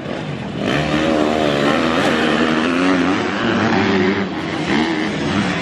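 Several dirt bike engines revving as the bikes ride through a turn on a motocross track, their pitch rising and falling with the throttle and overlapping one another. The sound gets louder about half a second in.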